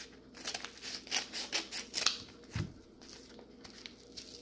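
Scissors snipping through a paper mailer envelope in a quick run of short cuts during the first two seconds, followed by a single soft thump about halfway through.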